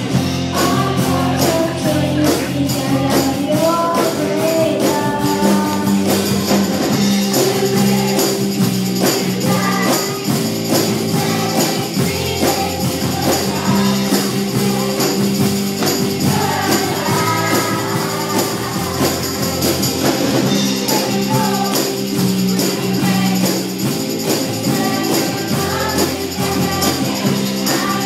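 Children's choir singing a worship song over instrumental accompaniment with a steady, regular percussion beat.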